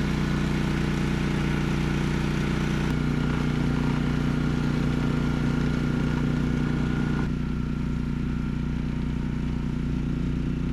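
Honda HSM1380i hybrid snowblower's engine running steadily, with a faint steady high whine over it; the tone shifts slightly about three seconds in and again about seven seconds in.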